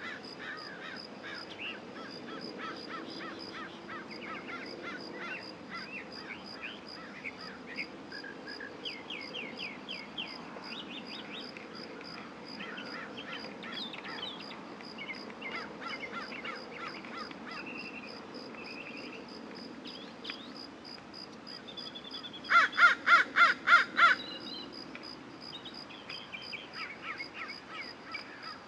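Outdoor birdsong: small birds chirping and twittering, with one loud, harsh, rapid run of about eight calls from a single bird near the end. A faint, steady, high pulsing trill sits underneath.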